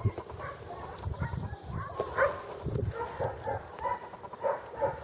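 An animal giving a string of short, repeated calls, about one or two a second.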